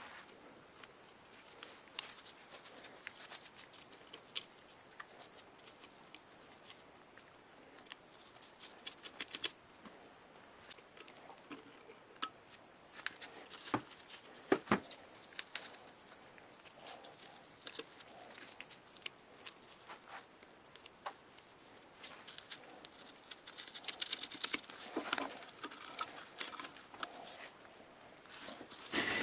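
Scattered light clicks and taps of tools and small metal parts being handled during hand work on an electric motor, with one louder knock about halfway through and a busier run of taps near the end.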